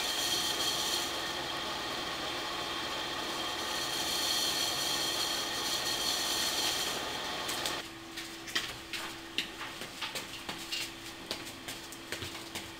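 Steady background noise with faint even tones, then, after a sudden drop about eight seconds in, many short clicks and knocks of a wrapped suitcase being handled and footsteps on a tiled floor.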